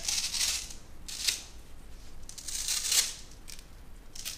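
Velcro hook-and-loop strips ripping apart in a few separate rasping pulls as a mesh intercooler screen is peeled off its guard, the longest pull about two and a half to three seconds in.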